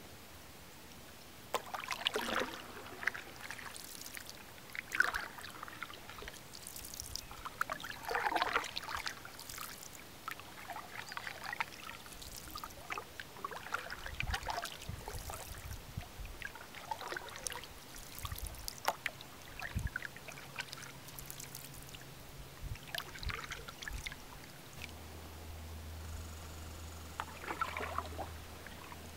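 Canoe paddle strokes in calm lake water: irregular splashes and trickling drips every second or two as the blade dips, pulls and lifts. A low steady hum comes in near the end.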